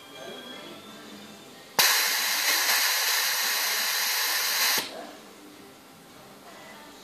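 Loud steady hiss of compressed air from a pneumatic vacuum ejector (venturi) while the suction cup grips a bottle. It starts suddenly about two seconds in and cuts off about three seconds later.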